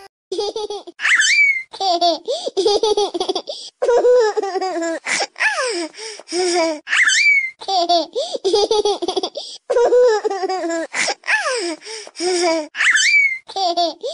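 Ringtone of a baby laughing in loud bursts. The same laughing clip loops about every six seconds, each time with a high rising squeal.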